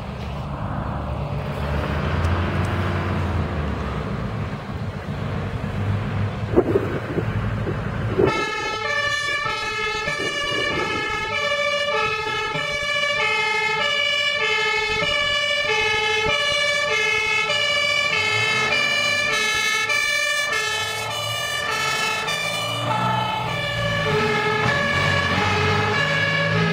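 Mercedes fire engine's diesel engine running as it pulls out, then about eight seconds in its two-tone siren comes on, switching between a high and a low note about twice a second. The siren's pitch drops as the fire engine drives past, and low engine noise rises near the end.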